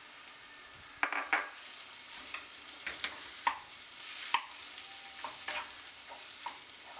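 Wooden spatula stirring and scraping mashed boiled potato into fried onion masala in a nonstick pan over a faint steady sizzle. Short irregular scraping strokes start about a second in.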